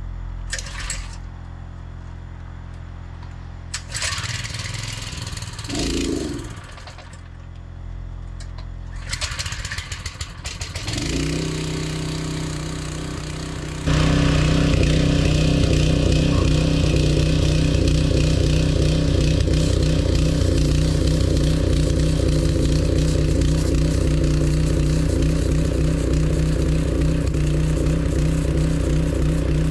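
Small gasoline engine of a pressure washer starting and running steadily. About fourteen seconds in, the sound jumps suddenly to a much louder steady run with a hiss over it.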